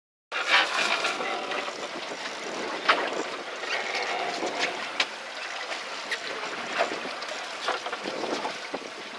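Wind and sea noise on a small fishing boat, with scattered sharp knocks. It begins abruptly about a third of a second in.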